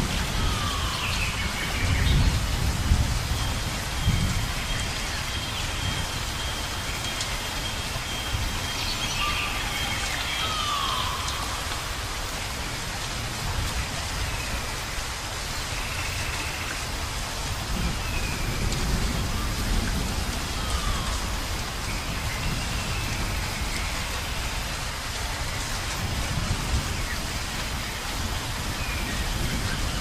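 Steady rain with low rumbles of thunder, twice. Short falling whistles come and go over it, and a thin high steady tone runs through the first third.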